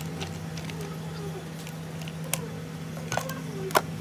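Steady low hum with a few sharp clicks, the loudest just before the end.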